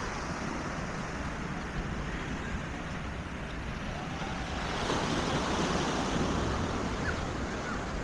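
Steady rushing noise of wind on the microphone and surf, a little louder about five seconds in.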